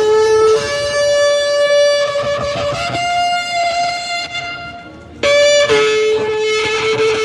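Ram's-horn shofar blown in long, loud blasts. The first blast steps up in pitch twice and breaks off about five seconds in. A second blast starts a moment later, briefly on the higher note, then holds the low note.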